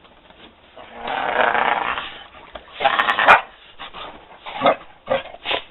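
Dog growling while play-biting a person's gloved hand: a longer growl about a second in, then several shorter, louder bursts.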